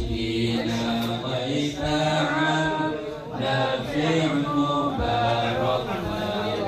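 Men's voices chanting an Islamic devotional manaqib recitation, the lead voice amplified through a microphone, with long held notes.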